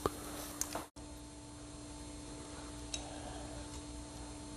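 Steady low electrical hum with a few faint light ticks. The sound drops out for an instant about a second in.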